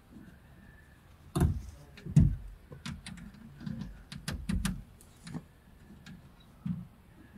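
Irregular knocks and clicks of hands and tools working on a car door's lock mechanism, with two heavier knocks about a second and a half and two seconds in, then a run of lighter clicks.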